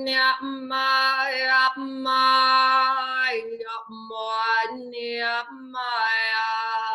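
A woman's voice chanting wordless light-language syllables. She holds long notes on nearly one pitch, with short breaks between phrases.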